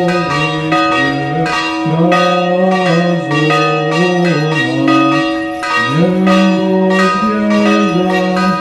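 Church bells ringing over a man's chanted Orthodox prayer, his low voice moving step by step between a few held notes.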